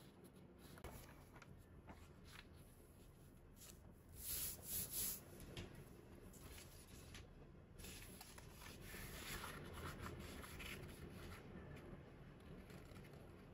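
Sheet of origami paper being handled and folded by hand: soft rustling and sliding of paper, with a few louder quick rustles about four to five seconds in.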